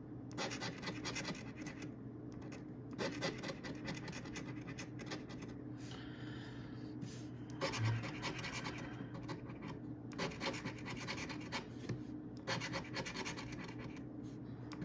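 A coin scratching the coating off a paper scratch-off lottery ticket, in runs of quick back-and-forth strokes with short pauses between them.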